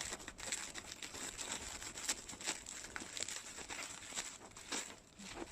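A parcel's wrapping being torn and crinkled open by hand: a dense run of rustles, crackles and small rips.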